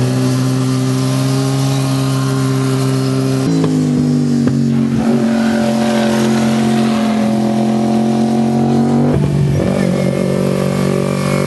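Sport motorcycle engines held at steady revs while leaning through a corner, with a slight fall in pitch as one goes by. The sound changes abruptly about three and a half and nine seconds in as a different bike takes over.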